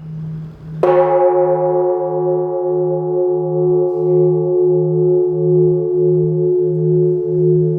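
Buddhist temple bell struck once about a second in, then ringing on with several steady tones that fade slowly and waver. A low hum pulses underneath.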